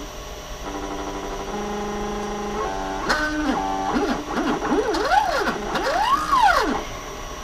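NEMA 23 stepper motor driving an X2 mini mill's Y-axis table through a roller chain and sprocket, whining with a pitch that follows its speed. About a second in it holds steady tones. In the second half it gives several rising-then-falling whines as it speeds up and slows down on successive moves.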